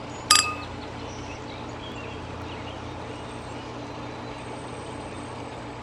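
Steady low rumble of a running engine or traffic. One short, loud, high beep sounds about a third of a second in.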